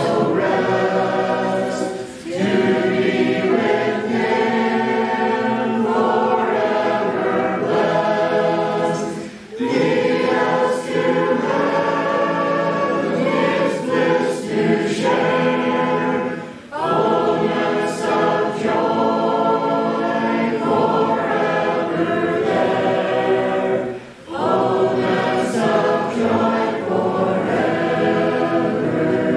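A choir singing unaccompanied in long held phrases, with a brief breath-pause about every seven seconds.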